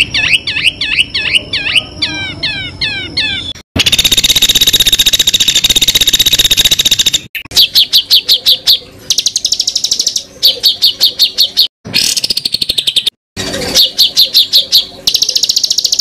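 Recorded songbird songs, spliced together with abrupt cuts, used to tutor cage birds. They run from fast, repeated sweeping whistles to a long, dense, buzzy trill, then short bursts of rapid-fire chattering notes.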